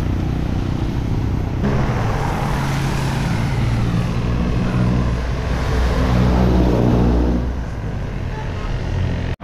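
Road traffic: a motor vehicle's engine running close by over a steady rush of road noise. The engine comes in about a second and a half in, grows loudest past the middle and fades near the end.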